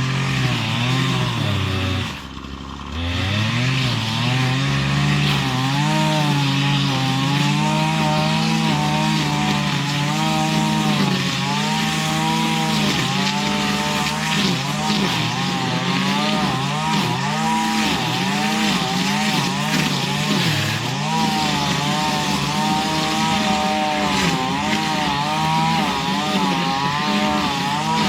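A small two-stroke engine running at high revs, its pitch rising and sagging over and over as it takes and sheds load, with a brief drop toward idle about two seconds in.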